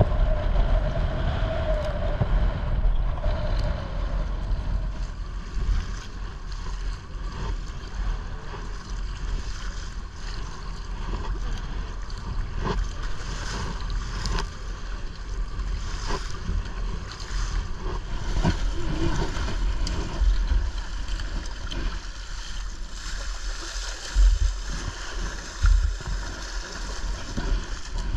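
Wind buffeting the microphone over choppy sea, with waves and paddle strokes splashing water around a sea kayak's bow. A steady tone sounds in the first few seconds, and two louder thumps come near the end.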